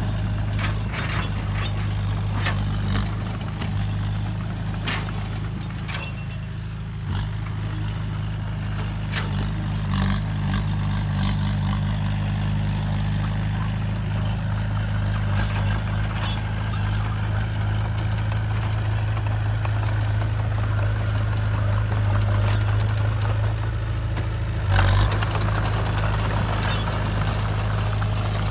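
Heavy diesel engine of construction machinery running steadily at low revs, with scattered knocks and clanks in the first several seconds. A sudden louder burst of noise comes about 25 seconds in, and a hiss continues after it.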